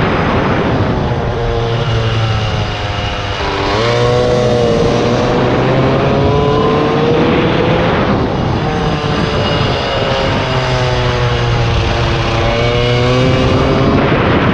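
Polini air-cooled 70 cc single-cylinder minimotard engine revving hard under acceleration, its pitch climbing and falling as the throttle is opened and shut through the corners, with a short drop in revs about three seconds in before it pulls up again. Wind rushes over the helmet-mounted microphone throughout.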